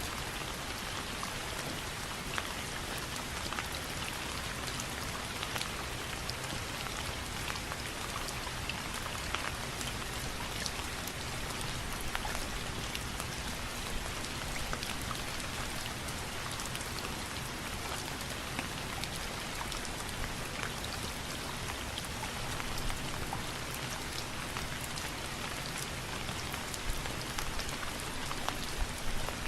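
Steady rain falling on a surface, with many individual drops ticking sharply through it.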